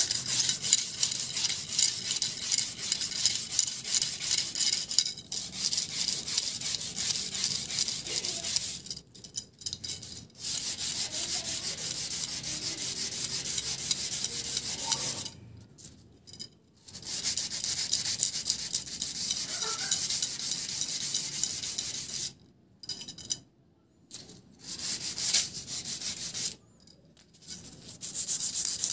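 Used coarse 40-grit sandpaper rubbed quickly along a rusty steel sharpening rod, scouring off the rust: a steady scratching that stops briefly four times.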